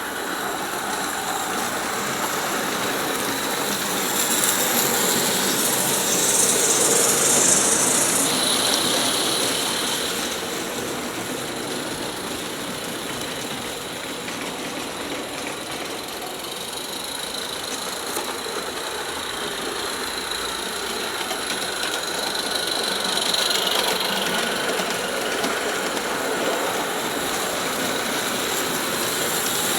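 Two Roundhouse 16mm-scale live steam locomotives, a Super Katie and a Garratt, running together with steam hiss and running noise, swelling louder twice as they come near.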